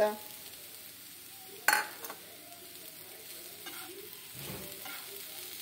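Grated cauliflower stir-frying in a non-stick pan over a low, steady sizzle, a slotted spatula scraping and stirring through it. There is one sharp knock about a second and a half in, with softer scraping strokes later.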